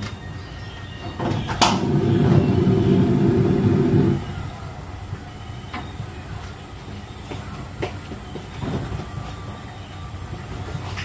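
Gas stove burner being lit: a sharp igniter click, then about two seconds of loud low rumble as the flame catches, settling to a quieter steady burn with a few small knocks.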